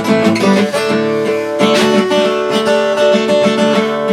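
Acoustic guitar strumming chords between sung lines of a song, with fresh strums about half a second and a second and a half in.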